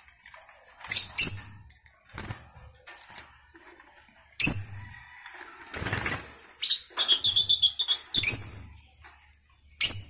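Caged pet lovebirds and a cockatiel giving loud, sharp, high chirps in separate bursts, with a quick run of about eight chirps around seven seconds in. A short rustling flutter of wings comes about six seconds in.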